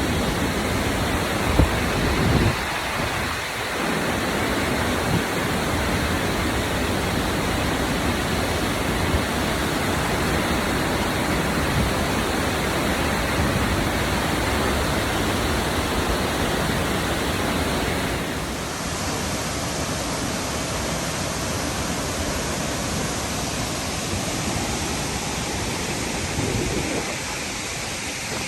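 Steady rush of Burney Falls, a 129-foot waterfall, with low rumbles near the start; the sound shifts slightly about two-thirds of the way through.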